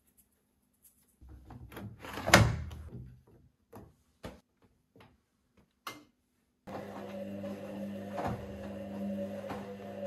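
Handling and door-like knocks with one loud bang a couple of seconds in, then a few separate clicks. About two-thirds of the way through, a steady hum with a low tone starts.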